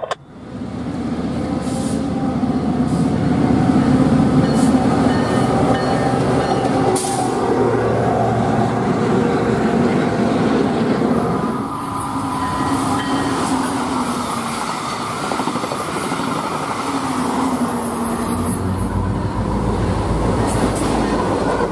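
Freight train rolling past: steel wheels on rail, with clicks at rail joints and some wheel squeal. Near the end a diesel locomotive's low engine rumble builds as it comes closer.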